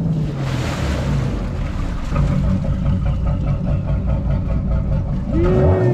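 A trawler's Cummins 6BT diesel inboard running at low speed while the boat is maneuvered into a slip. The engine note dips around the start and rises briefly near the end as the throttle is worked.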